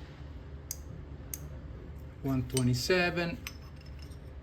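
A few sharp light metallic clicks, a metal tool touching a steel workpiece, over a steady low hum.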